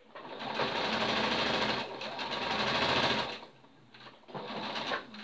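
Electric sewing machine stitching a seam through corduroy and its cotton lining, running steadily for about three seconds and then stopping. A brief, quieter burst follows near the end.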